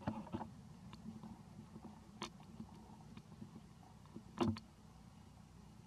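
A few short, sharp clicks and knocks over a low steady hum, the loudest knock about four and a half seconds in.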